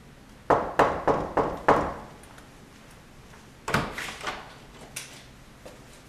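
Five quick knocks on a wooden front door, then the door's handle and latch clicking and rattling as it is unlatched and opened.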